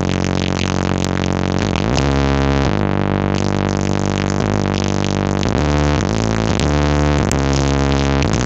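Loud music from a street-carnival sound system, with heavy steady bass under a melody that slides up and down between held notes.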